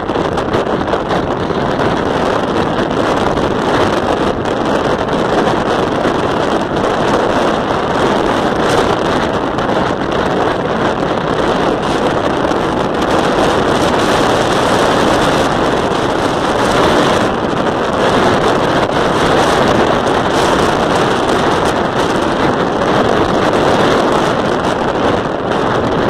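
Steady wind rushing over the microphone of a camera carried on a moving vehicle, mixed with the vehicle's running and road noise.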